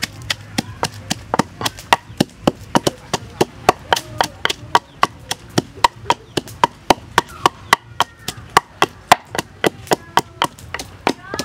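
Wooden pestle pounding fresh chilies and herbs in a wooden mortar: a steady run of sharp wooden knocks, about four a second.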